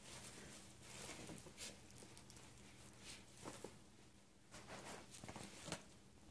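Soft, irregular rustling and crinkling of tissue paper and a paper gift bag as a small dog, a Tibetan Spaniel, digs its head into the bag.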